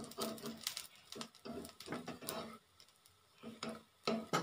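A spatula clicking and scraping on a dosa griddle in short irregular knocks as ghee-fried plantain slices are turned.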